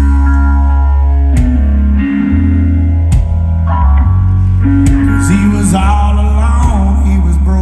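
Live rock band playing an instrumental passage: electric guitars and bass guitar over a drum kit, with cymbal crashes every second or two. In the second half a lead guitar plays bending, wavering notes.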